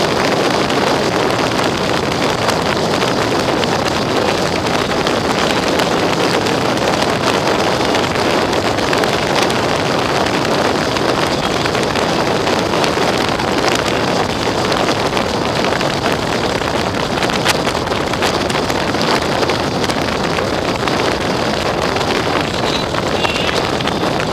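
Steady wind rushing over the microphone of a camera on a motorcycle riding at road speed, with the engine and tyre noise blended in underneath.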